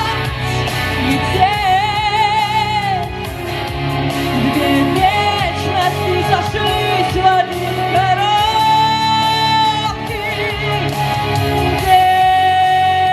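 A woman singing a pop ballad over instrumental backing, with vibrato on long held notes.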